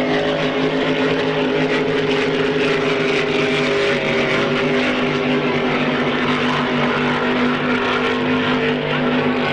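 Supercharged drag boat engines running at steady revs, a deep stacked engine note that holds pitch with only small shifts.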